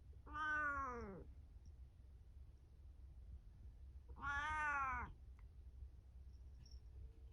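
Domestic cat meowing twice, about four seconds apart, each meow about a second long and falling in pitch at the end.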